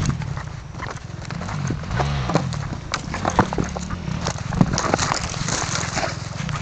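Footsteps crunching and knocking on a rocky dirt track, with a distant enduro dirt bike's engine rising and falling in pitch underneath.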